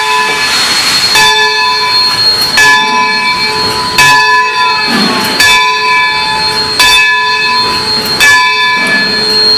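Brass bell of the 1929 Baldwin Locomotive Works No. 26 steam locomotive ringing steadily, one stroke about every one and a half seconds, each stroke ringing on into the next. A brief falling squeal comes about halfway through.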